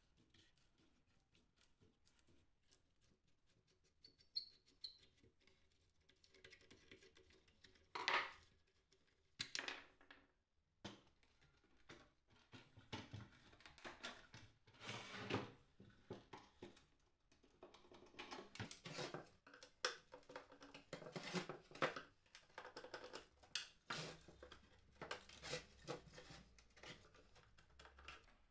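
Faint, irregular scrapes and clicks of hand tools on an old wooden frame: a screwdriver working a screw, then a flat metal blade prying and cutting away the old wire screen mesh.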